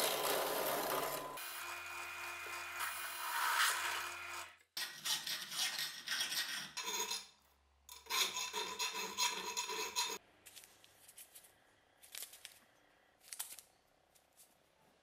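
A drill press bores into the steel tang of a cleaver, with the motor's steady hum under the cutting noise. About five seconds in, this gives way to rhythmic hacksaw strokes cutting metal clamped in a vise, which stop after about ten seconds. A few faint clicks of handling follow.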